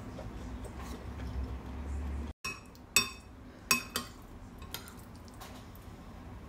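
A metal spoon clinking against a ceramic plate while scooping food, three sharp ringing clinks in quick succession around the middle.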